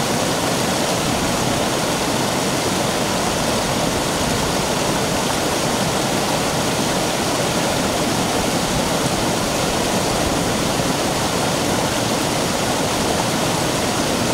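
Shallow mountain stream rushing over a rock slab: a loud, steady wash of flowing water.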